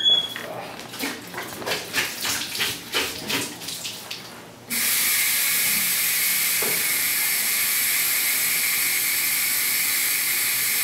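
Footsteps on a hard floor for the first few seconds, then a sink tap is turned on about halfway through and water runs steadily from the faucet into the basin.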